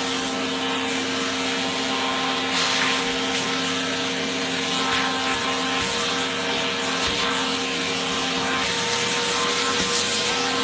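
Thread-trimming machine with suction running: a steady motor hum under a hiss of rushing air, with brief louder rasping patches now and then.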